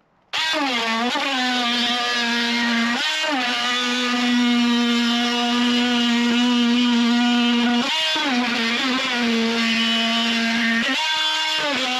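Corded oscillating multi-tool switched on and running steadily as it cuts through the old plastic caravan sunroof. Its pitch sags briefly under load several times, about three and eight seconds in and again near the end.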